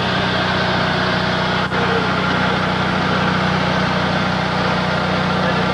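Vehicle engine idling steadily, an even low hum, with a momentary drop about a second and a half in.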